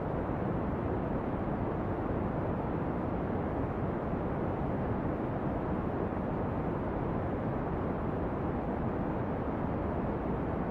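Brown noise: a steady, deep rushing hiss, heaviest in the bass and dull in the treble, even and unchanging throughout.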